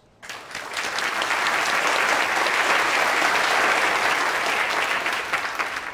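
Audience applauding, breaking out suddenly just after the start and keeping up steadily.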